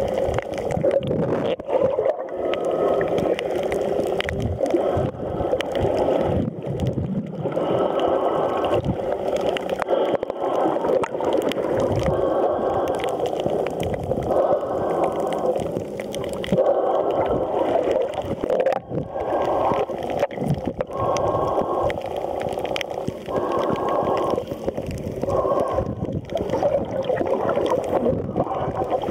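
Muffled gurgling and sloshing of shallow sea water around a camera held just under the surface, a steady dull underwater rush.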